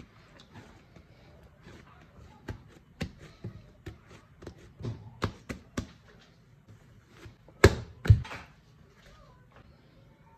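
Irregular taps and knocks of things being handled, with two loud thumps close together about eight seconds in.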